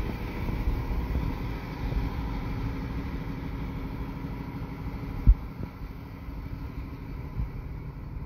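Wind buffeting the phone's microphone in a low, gusty rumble, with a faint steady hum underneath and one sharp thump about five seconds in.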